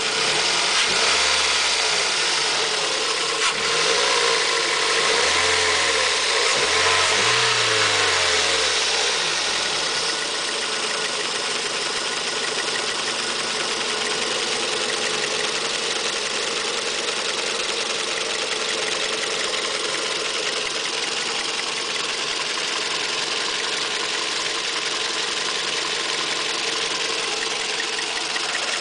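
Toyota 2NZ-FE 1.3-litre VVT-i four-cylinder petrol engine of a 2001 Yaris/Echo, warmed up and idling, heard close up from the engine bay. The sound swells and shifts unevenly for the first ten seconds or so, then settles to a steady idle. This is the engine noise that a Toyota mechanic judged normal, not a fault.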